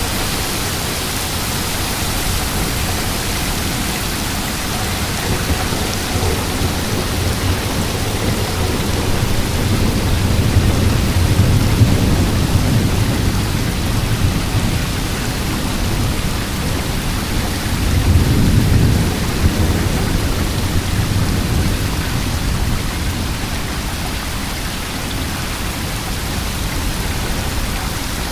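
Heavy rain and strong wind of a severe squall-line thunderstorm, a steady loud rushing hiss. Deeper rumbles swell up twice, about ten and eighteen seconds in.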